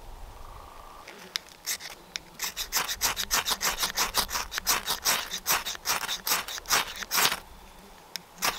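Quick rasping strokes of a hand tool on wood, about three a second. They start a couple of seconds in, stop about a second before the end, then start again just at the end.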